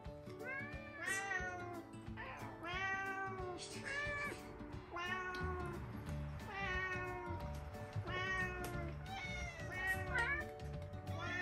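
Domestic cats meowing over and over, about one short meow a second, as they beg for food at a table where a person is eating. Soft background music plays underneath.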